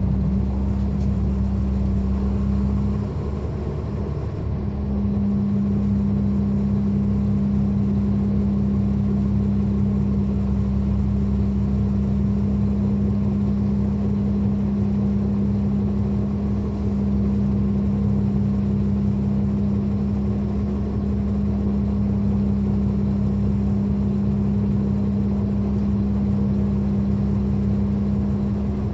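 Caterpillar C13 ACERT inline-six diesel engine of a 2009 NABI 40-SFW transit bus, heard from on board, running with a steady drone. The drone dips briefly about three seconds in, then holds at an even pitch.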